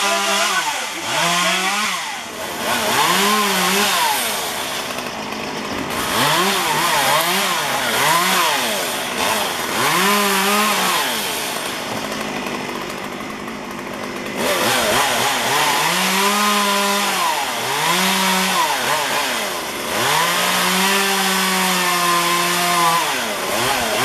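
Chainsaw up in the tree, its engine revving up and falling back again and again, with the saw's noise steady in between as it cuts limbs.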